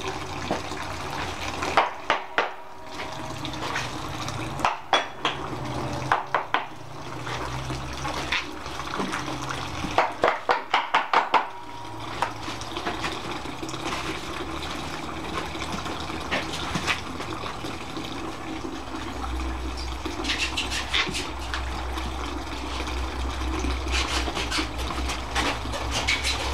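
Juice running and filling from a wine press during pressing, with scattered metallic clicks and clanks, including a quick run of about six clicks around ten seconds in.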